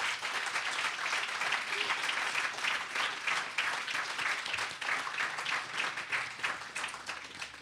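Audience applauding: many hands clapping in a dense patter that fades out near the end.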